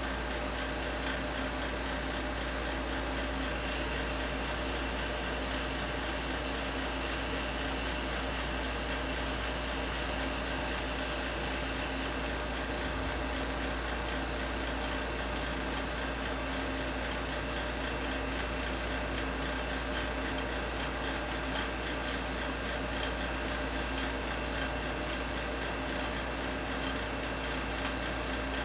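Tesla coil buzzing as it drives a discharge through low-pressure krypton in a glass bottle, with a vacuum pump running as the krypton is pumped out. The sound is a steady, unchanging hum with a high whine.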